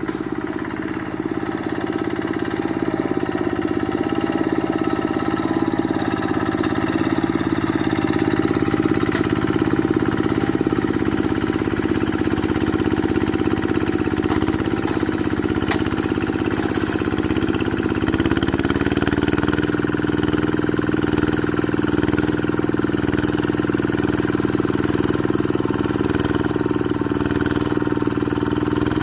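Quick G1000 hand tractor's single-cylinder diesel engine running steadily. Its pitch rises slightly about two-thirds of the way through.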